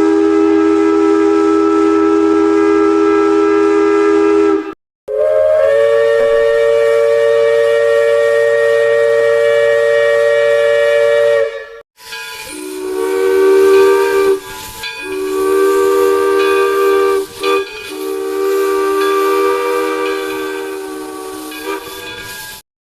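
Steam locomotive chime whistle blowing three long blasts, each several close tones sounding together, separated by abrupt cuts. The first two are steady, about five and six seconds long; the last runs about ten seconds, wavering in loudness with brief breaks.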